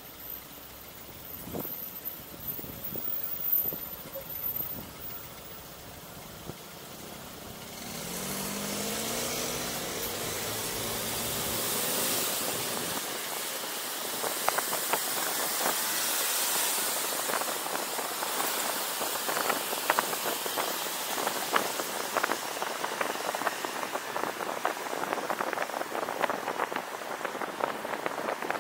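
A car sits quietly at first with a few soft knocks. About eight seconds in, its engine note rises as it pulls away. Then road and wind hiss builds with speed, crackling throughout.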